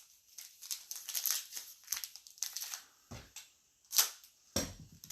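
Trading card pack wrappers being torn open and crinkled in the hands: a run of short rustling rips and crackles, with two louder bumps about four seconds in.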